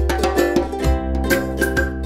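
Background music: a light plucked-string tune, ukulele-like, over a steady beat with a low bass.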